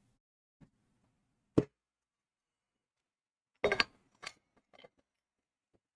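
A few short knocks and clicks against near silence: a single knock about a second and a half in, then a quick cluster of clicks near four seconds, followed by a few faint ticks.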